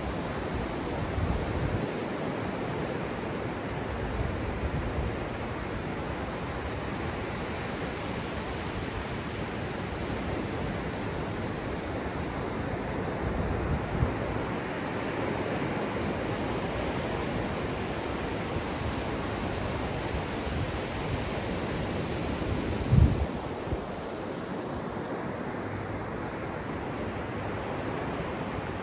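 Small ocean waves breaking and washing up the sand close by, a steady rush of surf, with low wind buffeting on the microphone. A brief low thump comes about two-thirds of the way through.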